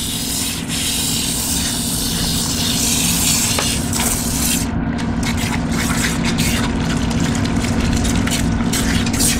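Recirculating dog-bathing system running: a steady pump hum under the hiss of water spraying from a handheld nozzle into a dog's wet coat. About five seconds in the spray turns choppy, breaking up rapidly.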